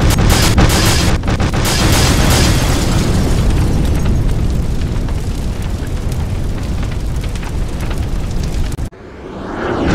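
Explosion sound effects for meteor impacts: a continuous heavy rumble of blasts with sharp cracks and crackle running through it. About nine seconds in it cuts out suddenly, and a rising rush of noise builds toward the end.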